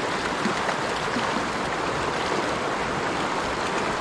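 Shallow, rocky freestone stream rushing over stones in a riffle, a steady noise of running water.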